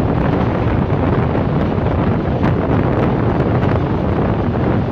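Wind buffeting the microphone over the steady rumble of a passenger train running at speed, heard from a carriage window.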